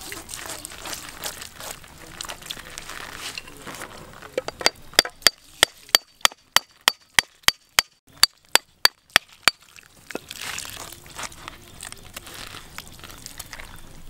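A steel cleaver being struck over and over as it is driven through a whole jackfruit: a run of about eighteen sharp, evenly spaced metallic clicks, some three and a half a second, for about five seconds. Before it comes water splashing over the fruit and blade, and after it a rustle as the fruit comes apart.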